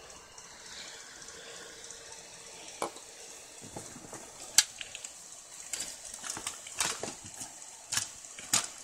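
Irregular clicks and light knocks of hard parts being handled during a PC build, several in quick succession in the second half, the sharpest about halfway through.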